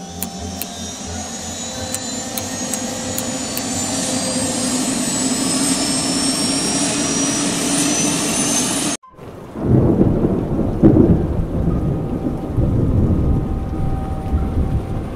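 V-22 Osprey tiltrotor's turboshaft engines spooling up, a whine that rises in pitch and grows louder, cut off suddenly about nine seconds in. A loud, uneven low rumble follows.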